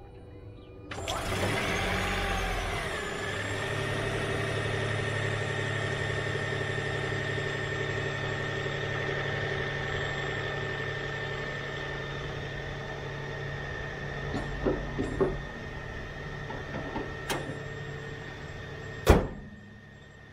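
Toyota Yaris Hybrid's 1.5-litre three-cylinder petrol engine starts from cold about a second in and runs steadily, with a steady high whine over it. Its low note eases off about fifteen seconds in. Near the end the bonnet is shut with one loud slam.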